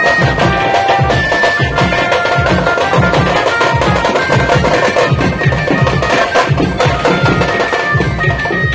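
Procession drum band beating strapped hand drums in a fast, steady rhythm, with a held high melody over the beat.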